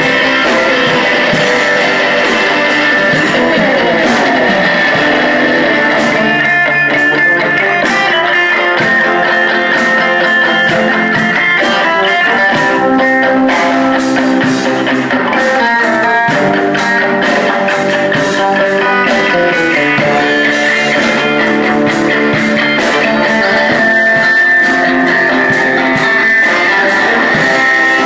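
Guitar music with a steady strummed rhythm.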